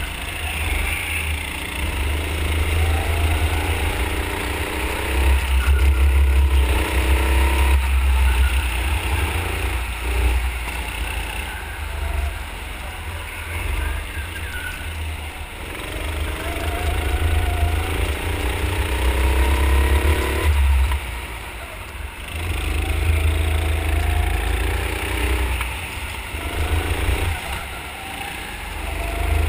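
Onboard sound of a 9 HP petrol rental go-kart engine, its pitch climbing as the kart accelerates down each straight and falling back as it lifts for the corners, several times over, with a heavy low rumble underneath.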